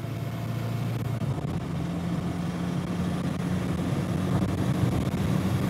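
A petrol car engine converted to a turbodiesel, running under load as the car drives at speed. Its note steps up in pitch about a second and a half in, then holds steady.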